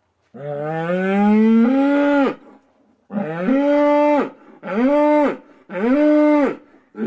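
Cow mooing: one long moo that rises in pitch, then three shorter moos in quick succession.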